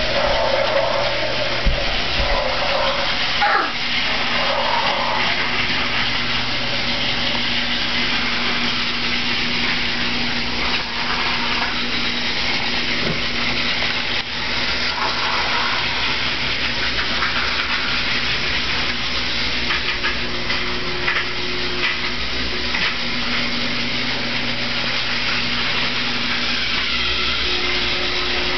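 Battery-powered toy trains running on plastic track: a steady whirring hum of small motors, with a few light clicks.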